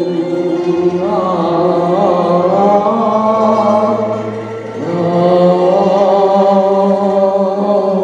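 A man singing a Chinese song, drawing out the word '幽冥啊' in a long held phrase with a wavering vibrato, over instrumental accompaniment; he moves to a new held note at about five seconds.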